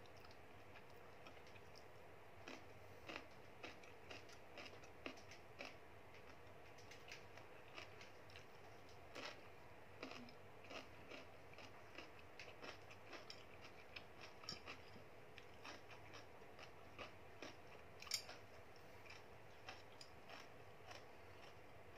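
A person chewing crisp food close to the microphone: soft, irregular crunches and clicks, quiet overall, with one sharper click about eighteen seconds in.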